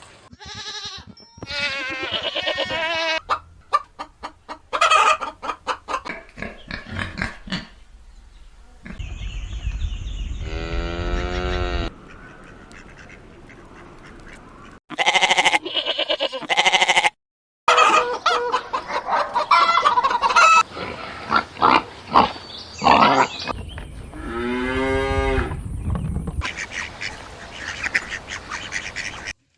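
A run of farmyard animal calls that cut abruptly from one clip to the next: honking fowl such as geese or ducks, mixed with other livestock calls, including two longer drawn-out calls.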